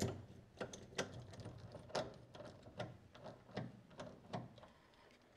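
Hand tools working on metal fittings under a car: a run of irregular light clicks and clinks, about two a second, thinning out near the end.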